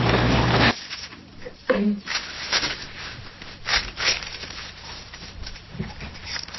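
Office ambience. A dense, loud murmur with a low hum cuts off suddenly under a second in. Quieter room tone follows, with scattered clicks and taps and a brief voice sound.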